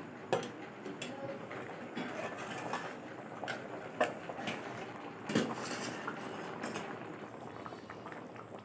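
Curry bubbling in a cooking pot, with a metal spoon clinking against the pot several times as it is stirred.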